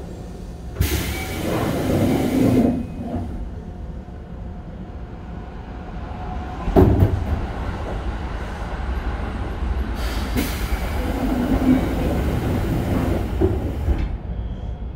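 Keikyu 1500-series commuter train running, heard from inside the car: a steady rumble of wheels on rail. Two stretches of louder rushing hiss come and go, and one sharp clatter sounds about seven seconds in.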